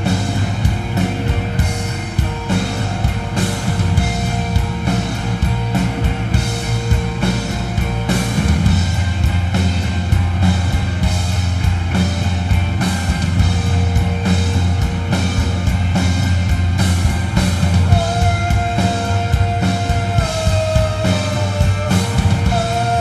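Live rock band playing loudly in a psychedelic rock style, with drum kit, bass and guitars. A high held note, likely a lead guitar line, comes in late and shifts in pitch.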